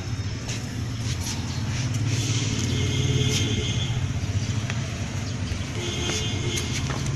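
A low, steady rumble like a motor vehicle's engine running, slightly louder in the middle, with a few faint clicks.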